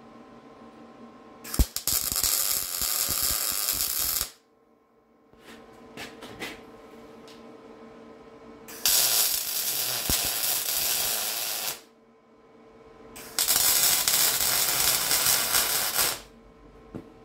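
MIG welder tack-welding steel brackets: three welds, each a steady crackle lasting about three seconds, with short pauses between them and a faint steady hum in the gaps.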